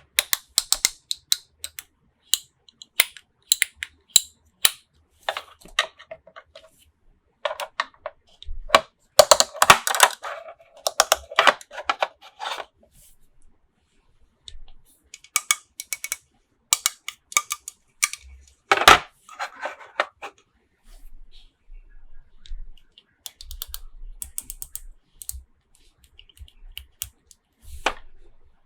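Small plastic toys and their packaging being handled: scattered sharp clicks and taps, with a longer stretch of crinkling about a third of the way in and a louder knock near two-thirds.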